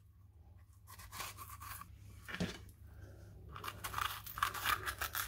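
A knife cutting into a bell pepper as the core, membranes and seeds are cut out: crisp crunching and tearing, starting about a second in and getting busier near the end.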